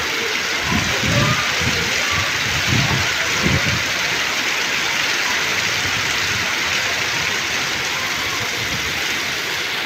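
Heavy rain pouring steadily onto a paved lane and brick walls, a dense even hiss. A few low thumps come in the first four seconds.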